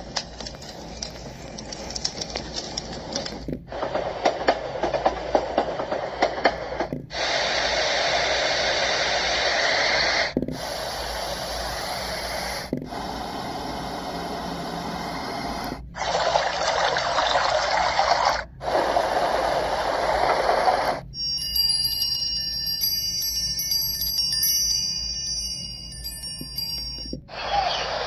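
Saregama Carvaan Sleep white-noise speaker playing its built-in soothing sounds one after another, switching abruptly every two to six seconds. Most are steady rushing noise like running water or rain; near the end comes a wind-chime sound with ringing tones.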